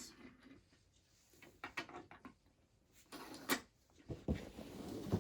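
BRIO wooden toy track and roller coaster parts knocking and clicking as they are handled and fitted together, in a few scattered clusters.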